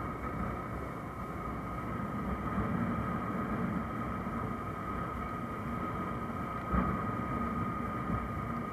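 Honda motorcycle cruising at steady speed: wind and road noise over the engine, with a thin steady whine above it and one short thump about seven seconds in.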